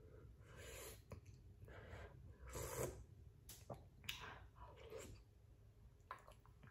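Soft eating sounds from a person taking soft tofu stew (sundubu jjigae) from a wooden spoon: short sips, slurps and chewing, the loudest a little under three seconds in.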